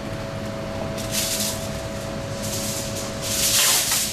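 Aluminium kitchen foil being handled, rustling and crinkling in several bursts, the loudest near the end, over a steady low hum.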